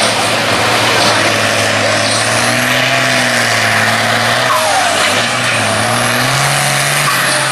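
Farm pulling tractor's engine running hard at high revs under load while it pulls the sled. The engine note sags about five seconds in, then climbs back up in steps near the end.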